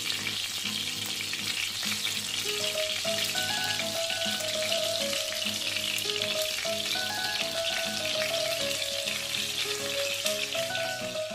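Battered chicken breast pieces sizzling steadily as they fry in shallow vegetable oil in a pan. A light plucked-string melody plays underneath the sizzle.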